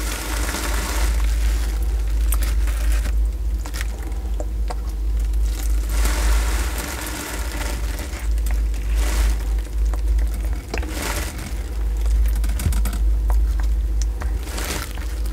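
A Sulcata tortoise biting and chewing soft papaya slices, with wet bites and chews coming irregularly every second or two over a steady low hum.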